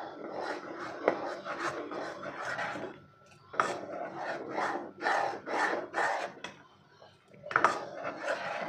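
A spatula stirring thick vermicelli kheer and scraping the bottom and sides of a pot in repeated short strokes, about two a second, with two short pauses.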